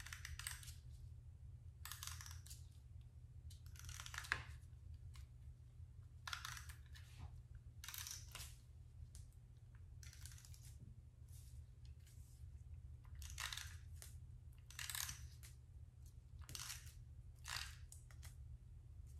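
Faint short crackling squirts of glue from a plastic squeeze bottle being worked around the rim of a sequin-filled shaker, about a dozen, spaced irregularly, over a steady low hum.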